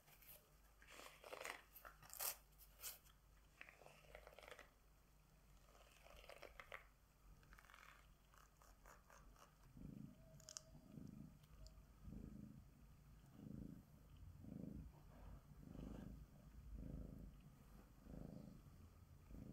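Soft rustling and small clicks as a rubber-nubbed mesh grooming glove is handled and pulled on. About halfway in, a Bengal cat starts purring, a low purr that swells and fades about once a second as it is stroked with the glove.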